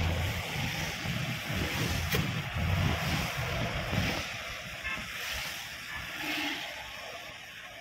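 Wind buffeting the microphone and the hiss of tyres on a wet road, heard inside a moving car. The gusty rumble gradually dies down as the car slows behind traffic.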